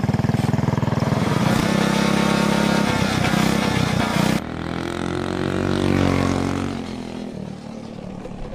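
Monowheel motorcycle's engine running hard as it accelerates away. About four seconds in, the sound changes abruptly, then the engine note rises and falls as the machine speeds past.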